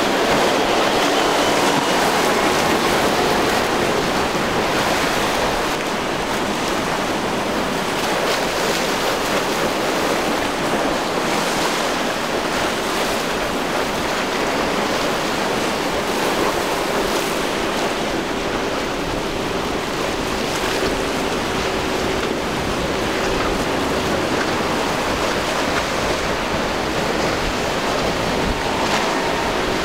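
Steady rush of wind and breaking surf, with the hum of outboard motors on passing boats underneath, clearest about halfway through and again near the end.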